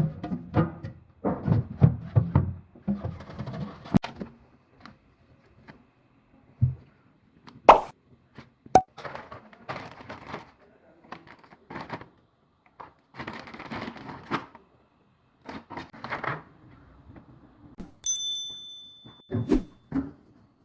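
Handling of a Haier HRF-306IA refrigerator and its packaging: irregular knocks, taps and rustling, with one sharp ringing knock partway through. Near the end there is a single electronic beep lasting about a second.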